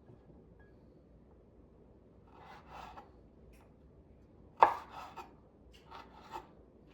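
Knife cutting food on a cutting board: a soft scraping a little before the middle, then one sharp knock followed by several lighter taps.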